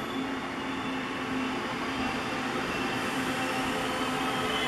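Taiwan Railways diesel-electric locomotive R157 moving slowly in the station yard, its engine a steady drone, with high wheel squeal growing louder near the end.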